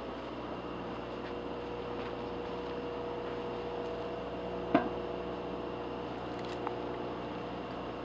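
A metal pot set down on a stone with a single clank and brief ring about halfway through, and a small click a couple of seconds later. Under it runs a steady mechanical hum with a few held tones.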